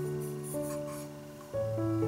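Background music: held chords that change to a new chord about one and a half seconds in.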